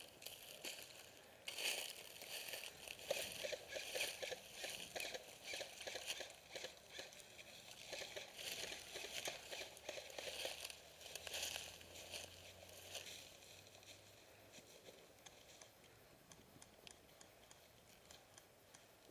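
Dense rustling and crunching of a player moving on foot through dry brush or leaves, with gear brushing close to the microphone. It goes on for about ten seconds, then dies down to faint background.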